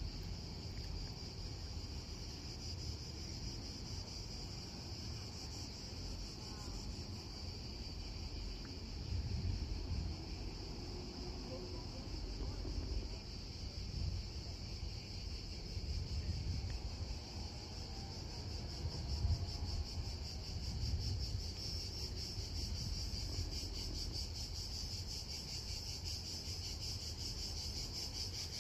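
Cicadas chirring in a steady, high, continuous drone, with an uneven low rumble underneath.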